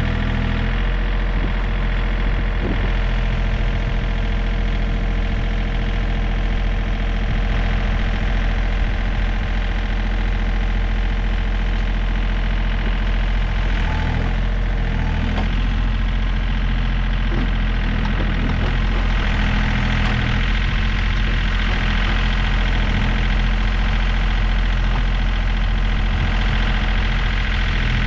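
Tractor engine running steadily, a constant drone with small changes in pitch and load partway through.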